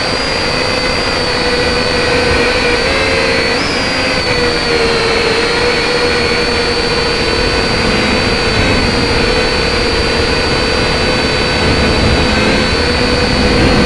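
Syma X5SC quadcopter's small electric motors and triple-blade propellers whining steadily in flight, heard close up through the drone's own camera microphone. The pitch wavers a little now and then as the throttle shifts.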